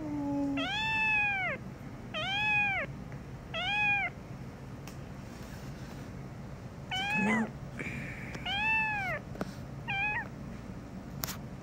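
A juvenile kitten meowing over and over, about six meows each rising and then falling in pitch, complaining as it is held for treatment.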